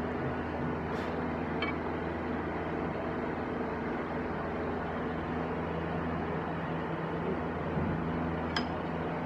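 Lathe running steadily with a constant hum, with a faint metallic tick or two, while a tota housing is bored out.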